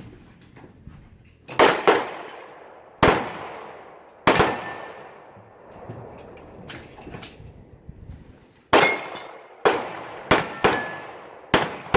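Pistol shots fired in an irregular string, about nine in all: a quick pair, two single shots, then a faster run of five near the end. Each shot has a decaying echo, and a few leave a faint ringing tone.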